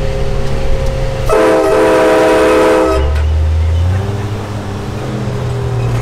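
Truck-mounted train horn blasting one multi-note chord for about a second and a half, starting a little over a second in. The truck's engine runs underneath and rises in pitch near the end.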